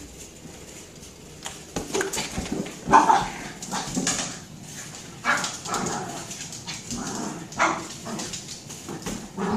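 Small dog barking in short bursts at a large rubber ball, starting about two seconds in and repeating every half second to a second.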